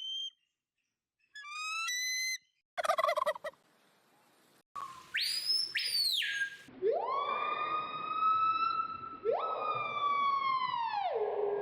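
A string of separate whistled, bird-like call effects: a run of quick rising chirps, a short burst, a high whistle that falls away, then two long tones that swoop up, hold and glide down like a siren.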